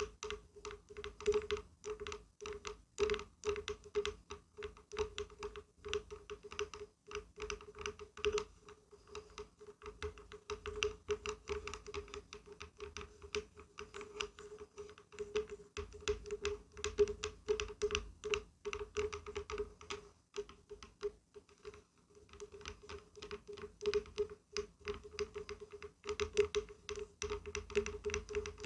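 Rapid, irregular tapping and knocking on wood, many light taps a second, each with a short hollow ring.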